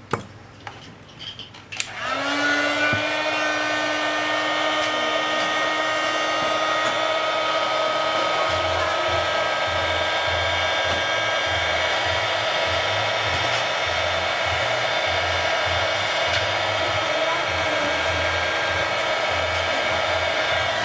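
A handheld electric hot-air blower switches on about two seconds in, its pitch rising briefly as it spins up. It then runs steadily with a whine and switches off at the end.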